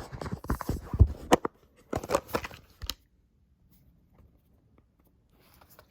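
Packaging of an iPhone 12 Pro box being torn open and handled: a quick run of rips, crinkles and clicks for about three seconds.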